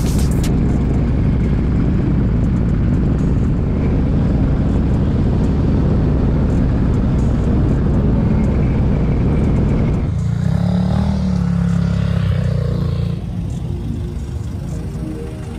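Riding motorcycle: heavy wind rush over a low engine rumble. About ten seconds in it cuts abruptly to a steadier, quieter engine hum that drops away over the last few seconds.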